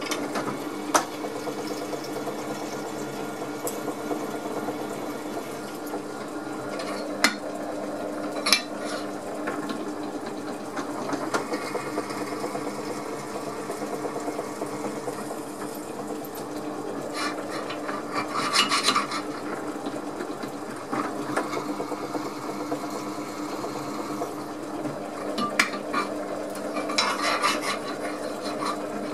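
Drill press running with a steady hum while a twist drill bores holes through an aluminium bracket, with scratchy bursts of the bit cutting about two-thirds of the way in and again near the end. A few sharp clicks come in the first third.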